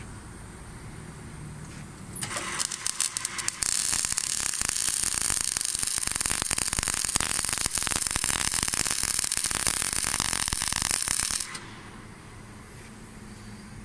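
MIG/MAG welding arc from a CLOOS GLC 350W welder laying a bead on steel plate. The arc strikes about two seconds in with an uneven sputtering start, settles into a steady loud crackle, and cuts off about a second and a half before the end. A low hum runs underneath before and after.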